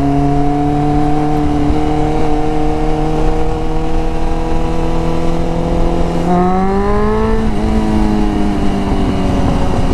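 Motorcycle engine running under way, its note climbing slowly, then rising more quickly about six seconds in and falling back over the last couple of seconds. Wind rushes over the microphone throughout.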